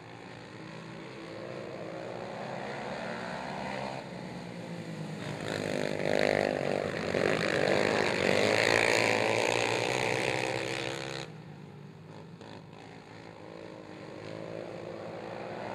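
Several racing quad ATVs running hard together, their engines revving up and down as they go through a turn and onto the straight. The engines grow louder from about four seconds in as the pack comes close, then drop back suddenly to a more distant sound a little past eleven seconds.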